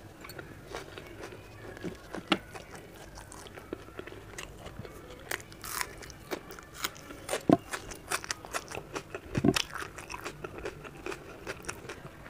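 A person biting and chewing raw red onion slices: irregular crisp crunches and chewing, the loudest crunches about seven and a half and nine and a half seconds in.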